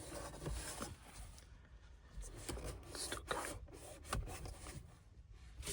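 A cloth wiping over a freshly applied screen protector: faint, irregular rubbing strokes.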